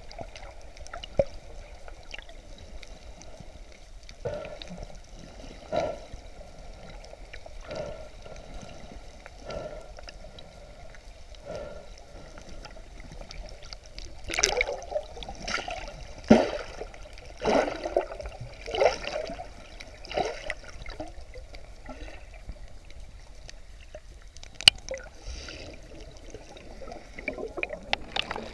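Muffled water heard underwater: a steady gurgling and bubbling, with a run of louder bubbly gushes about once a second in the middle and one sharp click near the end.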